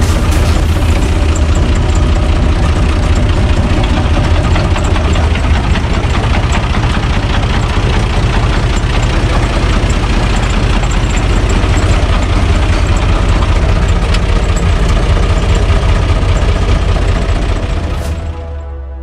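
UTB 445 DT tractor's diesel engine running steadily, heard from the cab. The sound fades out near the end.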